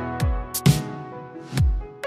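Electronic background music: sustained synth chords with sharp drum hits and deep bass notes that slide downward, twice.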